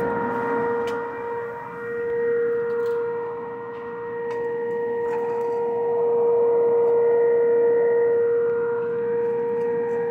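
Microwave vent-fan motor spinning a 3D-printed blower impeller: a steady, even-pitched whine over a rush of air from its 3-inch hose, the air noise swelling and dipping.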